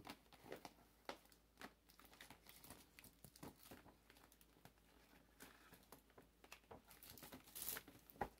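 Faint crinkling and rustling of plastic candy wrappers and gift packaging being handled and sorted, in short scattered bursts, a little louder near the end.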